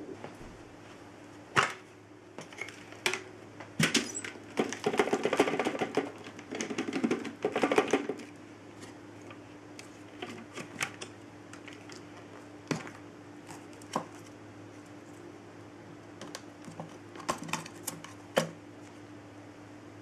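Clear plastic dust bin and filter of a Dyson DC25 upright vacuum being handled: a series of sharp plastic clicks and knocks, with a stretch of dense rattling from about four to eight seconds in.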